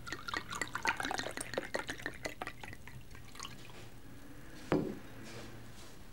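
Water dripping: quick, irregular drops plinking during the first few seconds, then thinning out, with one louder thump or plop near the end.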